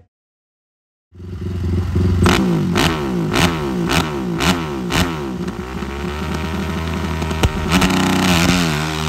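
After about a second of silence, a dirt bike engine is revved at the start line in quick throttle blips, about two a second, and then held at a steadier high rev that climbs again near the end.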